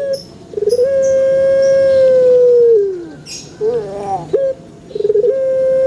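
Puter pelung (ringneck dove) cooing in long drawn-out coos. Each coo opens with a quick stutter, holds one steady note for about two seconds, then drops away. A short wavering note comes between the two coos, and the second coo begins near the end.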